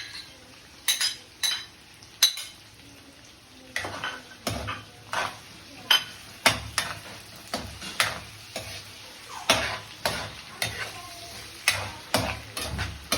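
Chicken frying in a pan with a faint sizzle, while a cooking utensil stirs it and knocks and scrapes against the pan. The knocks are few at first, then come about once or twice a second from about four seconds in.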